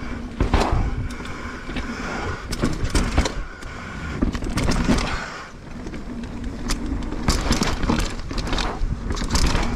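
Propain Spindrift enduro mountain bike riding fast down a rough dirt trail: tyres rolling over roots and rocks with a constant rush, and the bike clattering and knocking on repeated hits.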